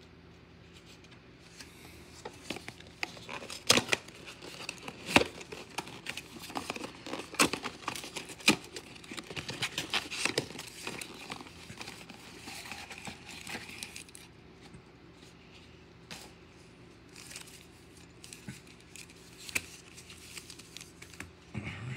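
Plastic wrapper of a pack of football trading cards crinkling and tearing as it is picked at and peeled open by hand: a run of sharp crackles and snaps, busiest from about two seconds in to the middle, then sparser.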